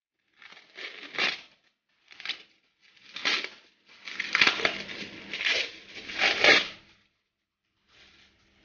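Plastic courier wrapping and packing tape crinkling and tearing as a parcel is pulled open by hand, in a series of irregular bursts, the longest and loudest in the second half.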